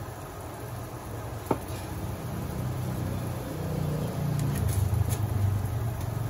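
Pan of corned beef and kangkong stalks simmering, a low steady rumble that grows louder after about two seconds. A single sharp click about a second and a half in.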